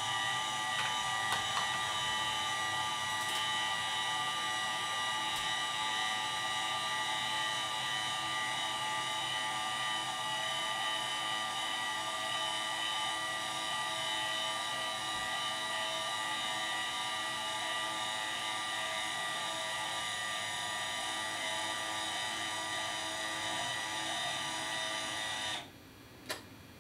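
Celestron CGX equatorial mount's motors whining steadily at full slew speed. The whine cuts off abruptly about a second before the end, the mount halting partway through its slew, one of the repeated stops it is being tested for.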